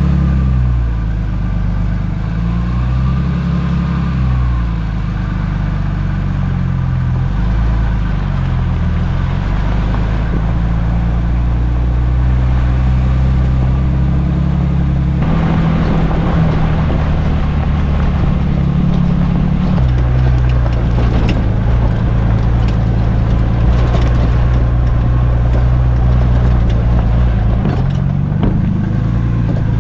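Jeep engine running while off-roading on a backcountry trail, its pitch rising and falling with the throttle, then holding steady. About halfway through, a rougher, noisier rumble joins it for several seconds.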